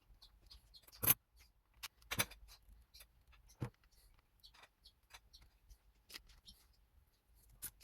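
Irregular clicks, taps and knocks of materials being handled at a work surface, a few sharper knocks among many faint ticks.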